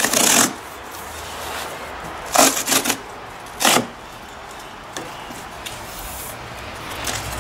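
Cardboard box being handled and opened, the cardboard rubbing and scraping: one scrape at the start, a quick cluster of scrapes about two and a half seconds in, and a single short scrape just under four seconds in.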